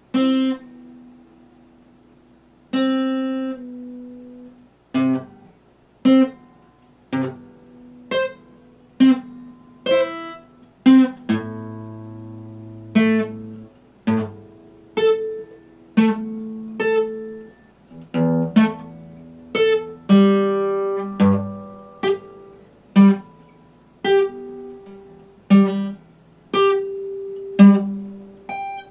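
Epiphone acoustic guitar strummed slowly: single chords struck about once a second, each left to ring and die away, with a few quicker strums in the middle.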